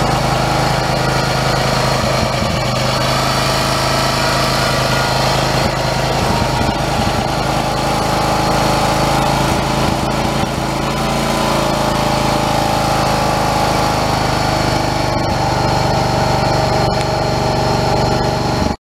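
John Deere 314 lawn tractor's engine running steadily.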